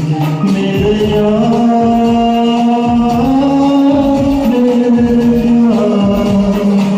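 A Hindi film song sung with melodic accompaniment and a steady percussion beat; the voice holds long notes that step up and down.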